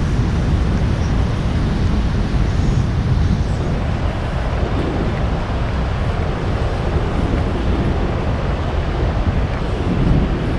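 Steady low rumble and hiss of background noise in a large station concourse, with no distinct events.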